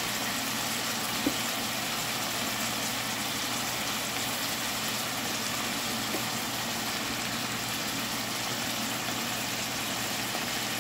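Steady sizzling hiss of chopped tomatoes and onions cooking in a stainless steel pot, over a steady low hum, with one light tap about a second in.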